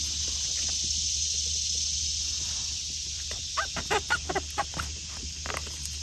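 Steady high-pitched outdoor woodland ambience with a low hum beneath. A quick run of short crackles and clicks, about three and a half to five seconds in, is the loudest sound.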